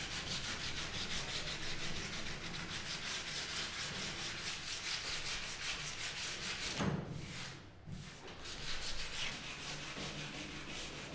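Sandpaper worked by hand up and down a painted wooden door frame, in quick even back-and-forth strokes at about five a second. The strokes break off for about a second roughly two-thirds of the way through, then carry on.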